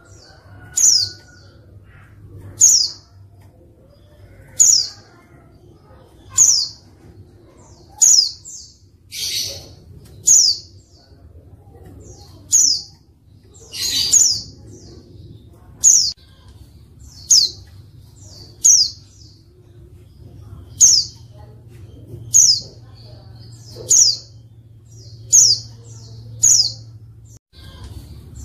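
Female white-eye (pleci) calling: short, sharp, high notes that drop in pitch, repeated about every one and a half to two seconds. Two harsher, longer notes come about ten and fourteen seconds in.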